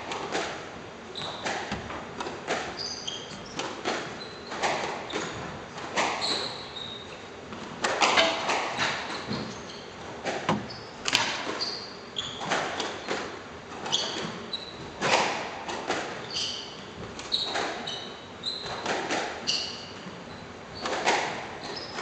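Squash rally: the ball is struck by rackets and smacks off the court walls in a quick series of sharp hits, with players' shoes squeaking briefly on the wooden court floor.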